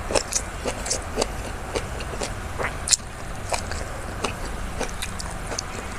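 Close-up eating sounds: chewing, with irregular short crunchy clicks several times a second, over a low steady hum.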